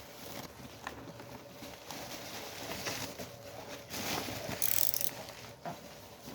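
Packaging of boxed Bluetooth speakers being handled: irregular rustling and scraping with small clicks, and a brief loud hissy rasp about four and a half seconds in.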